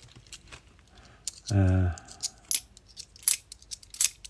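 Bimetallic £2 coins clicking against each other as a stack is thumbed through by hand, a run of sharp metallic clicks at an uneven pace. About one and a half seconds in, a man's voice gives a short hum.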